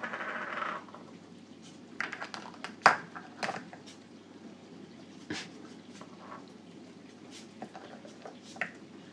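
Plastic stacking cups clicking and knocking as African grey parrots handle them with their beaks: a short scratchy noise at the start, then a few scattered sharp taps, the loudest about three seconds in.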